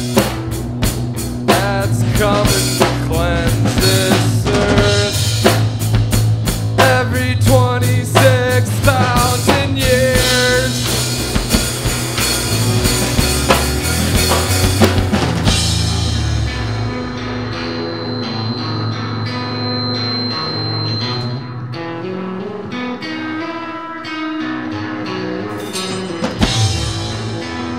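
Live funk-rock band playing: electric guitar, bass guitar and drum kit. About halfway through, the drums drop out and the music turns sparser and a little quieter.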